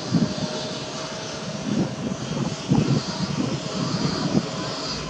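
Steady motor hum with a thin, constant whine, broken by irregular low rumbling surges through the first four seconds or so.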